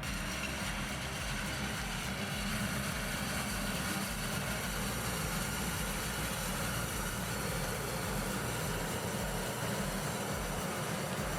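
A large machine's engine running steadily, with a pulsing low rumble.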